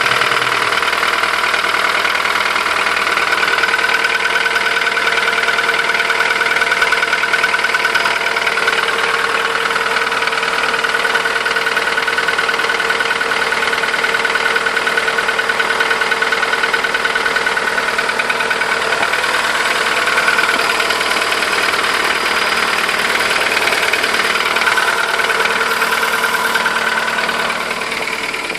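Volkswagen Golf 1.4 16V four-cylinder petrol engine idling with a rapid knocking. The owner says it knocks hard when cold and goes quiet once warm, does not change with the oil filler cap off, and takes it for piston slap (loose pistons). The sound drops away near the end.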